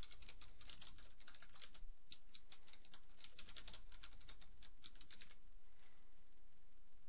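Typing on a computer keyboard: a quick run of keystrokes that stops a little after five seconds in.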